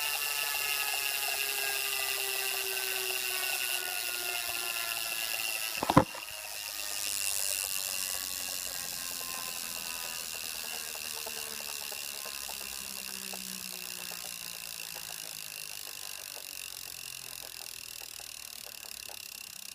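2016 Wahoo Kickr smart trainer's drive belt and flywheel spinning down. Several whining tones fall slowly in pitch as it coasts, with one sharp click about six seconds in and faint repeated clicks as it slows. The clicking and rubbing from the belt is a noise the owner doubts is normal.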